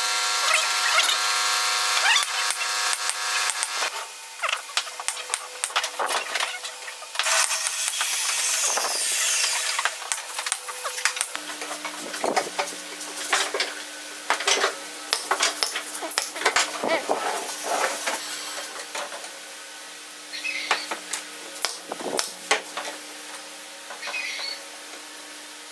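Wooden slats knocking and clattering against each other and the bench as they are handled and fitted into a rack frame, with wood rubbing on wood. A steady low hum comes in about halfway.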